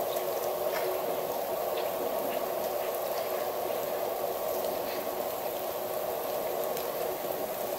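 Steady hiss of heavy rain, with scattered drop ticks over the top.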